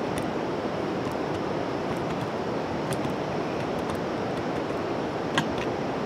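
A short-handled hoe chopping into dry, clumpy hillside soil, giving a few sharp strikes with the loudest near the end, over a steady rushing outdoor noise.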